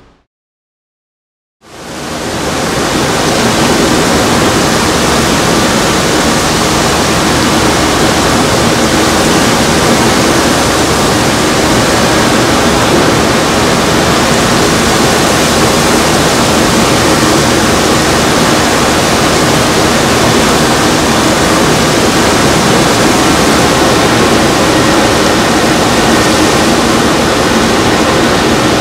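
Hurricane wind with driving rain: a loud, steady rushing noise that fades in after about a second and a half of silence.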